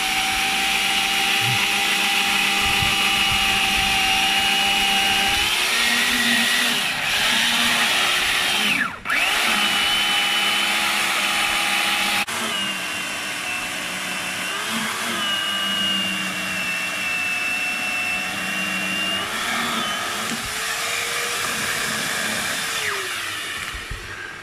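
Corded electric chainsaw running and cutting through a log, its motor whine sagging in pitch again and again as the chain is loaded in the wood and picking back up between cuts. It briefly drops out about nine seconds in and runs down near the end.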